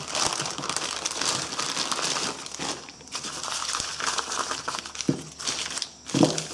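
A plastic bag, then brown paper wrapping, crinkling and rustling as a new valve is unwrapped by hand.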